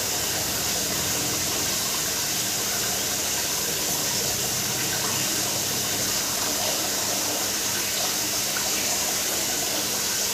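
Aquarium aeration and filter running: a steady hiss of bubbling water with a faint low hum underneath.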